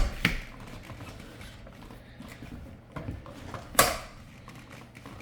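A few scattered knocks and clatters of parts being handled, the loudest a sharp knock nearly four seconds in.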